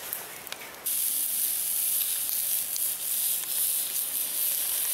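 Squirrel meat sizzling in a frying pan over campfire embers: a steady high hiss that starts about a second in.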